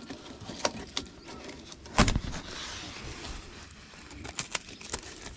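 Clicks and knocks of a metal soft-top latch being hooked and fastened on the door rail, the loudest about two seconds in, with rustling of the canvas top between them.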